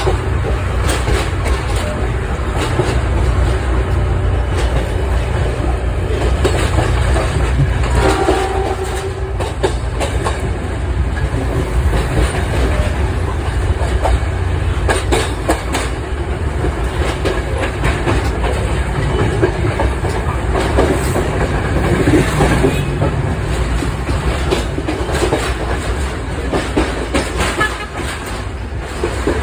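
Passenger train running along the track: a steady low rumble with the wheels clattering over rail joints.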